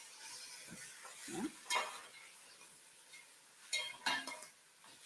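Spatula stirring chicken pieces in a stainless steel pot, with several short scrapes and clinks against the pot and a faint sizzle under them.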